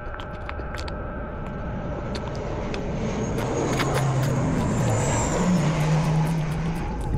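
A motor vehicle passing by: engine and road noise swell over several seconds with a low, wavering engine note, then drop near the end. Faint crisp clicks of chewing leaves sound in the first second and a half.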